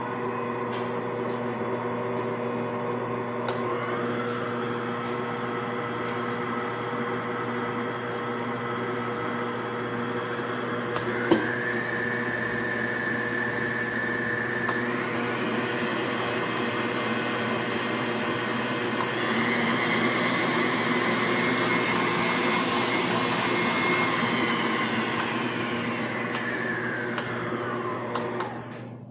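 Electric stand mixer motor running at speed. Its whine steps up in pitch several times as the speed is raised, with a sharp click about eleven seconds in, then falls away as the motor winds down and stops just before the end.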